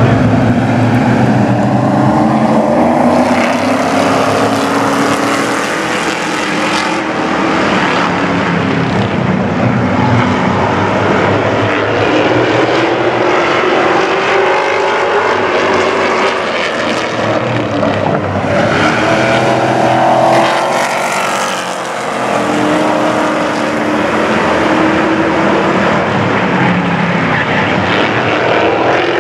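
A pack of Pro Truck race trucks running at race speed, loud and continuous, their engine pitch rising and falling as they come past and move away.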